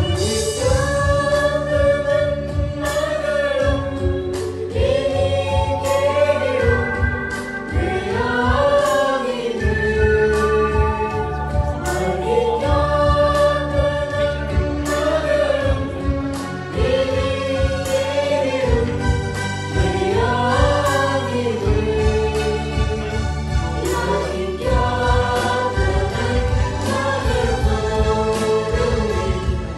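Small choir singing a devotional hymn into microphones, accompanied by an electronic arranger keyboard, with the tune rising and falling in long held phrases.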